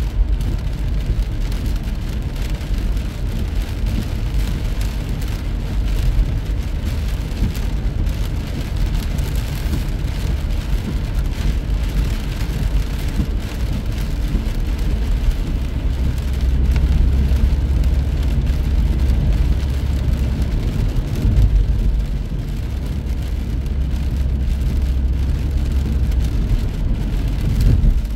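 Rain falling on a car driving along a highway, over a steady low rumble of road and engine noise.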